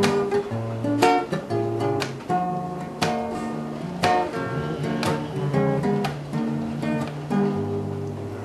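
Background song's instrumental passage: strummed acoustic guitar chords with a steady beat, about one strong strum a second.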